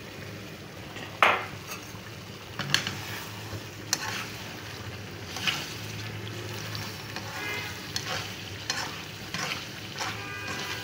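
Chicken karahi gravy sizzling and frying in a pan as oil is poured in and stirred, with a spoon scraping and clicking against the pan now and then.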